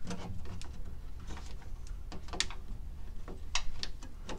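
Light plastic clicks and taps as a washing machine's drain pump filter and its access hatch are handled, a few sharper knocks among them.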